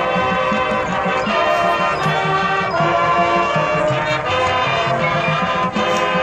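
High school marching band playing loudly: the brass section holds chords over steady low drum beats.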